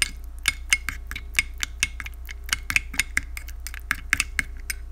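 Metal spoon stirring sauce in a white ceramic bowl, clinking and scraping against the bowl in quick, irregular clicks, about five a second.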